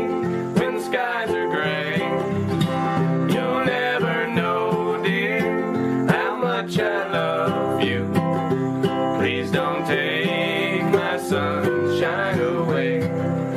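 Background music: a song on acoustic guitar in a country style, playing steadily.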